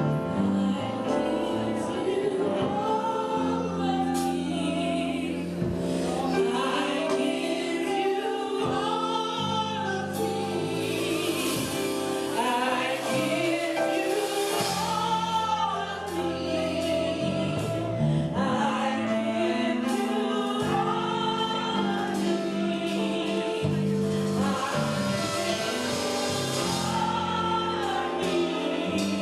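Gospel music: singers performing a song over instrumental accompaniment with a steady bass line.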